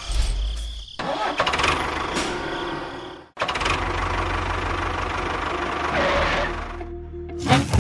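A small engine running steadily, broken by abrupt edit cuts about a second in and again just past three seconds, with a short louder burst near the end.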